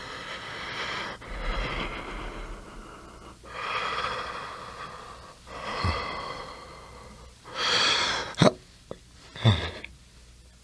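A man breathing slowly and heavily, with about four long breaths each lasting some two seconds. Near the end come two shorter, louder breaths as he stirs awake.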